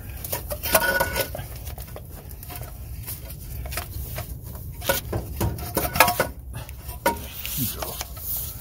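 Irregular metal clanks, knocks and scrapes as a cast intake manifold is jostled and worked into place against the exhaust manifold and head of a Ford 300 (4.9 L) inline-six, with a steady low rumble underneath.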